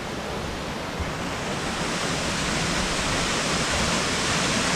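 Waterfall's rushing water, a steady roar of falling water that grows louder over the first couple of seconds.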